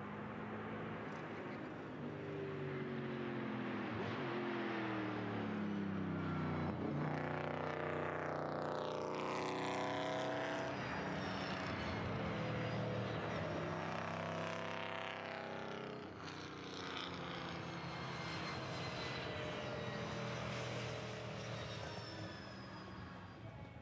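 V8 touring race car engines running hard on track, their pitch climbing under acceleration and dropping on lifts and gear changes, several times over.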